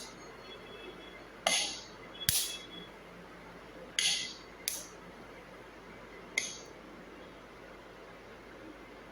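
Tecno Ace A3 earbuds' plastic magnetic charging case snapping: five sharp clicks spread irregularly over the first six or so seconds, as the magnets pull the parts together.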